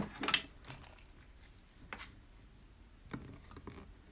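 Scattered light clicks and taps of metal clasp hardware on a leather bag strap being handled, a few near the start and a small cluster around three seconds in.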